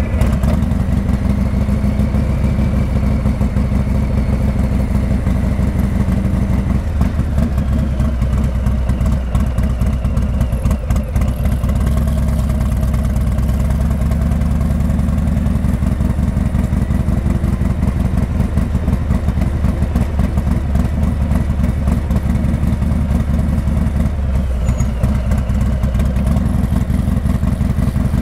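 Harley-Davidson Heritage Classic 114's Milwaukee-Eight 114 V-twin running through a Rinehart exhaust, a steady low pulsing rumble at low speed.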